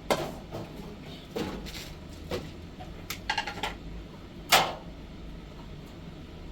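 A few irregular knocks and clatters, as of things being handled or a cupboard or door being shut, with a quick run of small knocks and then one louder knock about four and a half seconds in.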